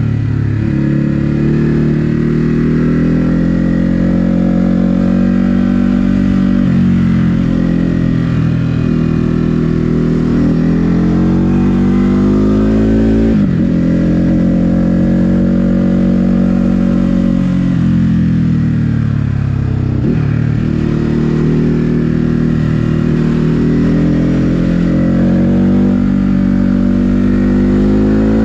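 Ducati Hypermotard 950 SP's L-twin engine under way. The revs climb and fall several times as the rider accelerates and eases off, with sharp drops about a quarter, half and two-thirds of the way in.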